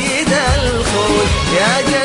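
Arabic song as a backing track: a singing voice with a wavering, ornamented melody over a steady rhythmic beat.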